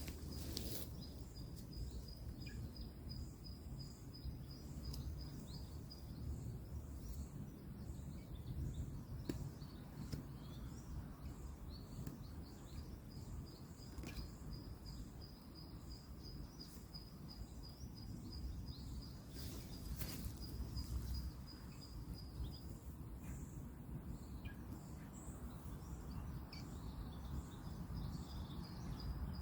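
Outdoor ambience: a steady low rumble of distant road traffic under a high, fast-pulsing trill at one pitch that breaks off twice and starts again, with a few sharp clicks.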